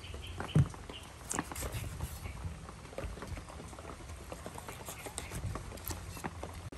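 Raw pig liver being handled and sliced with a kitchen knife on a wooden chopping board: scattered soft taps and clicks, with a dull thump about half a second in.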